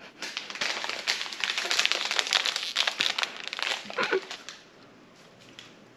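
Close crinkling and rustling, a dense crackle of many small clicks, dying down about four seconds in.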